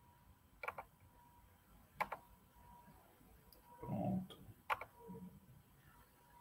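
Faint computer mouse clicks, four scattered single clicks, with a brief low sound about four seconds in.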